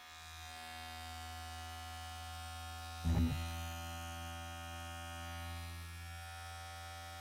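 Omorc electric dog grooming clippers running with no blade guard, held up close to the microphone: a steady low buzz. A brief bump sounds about three seconds in.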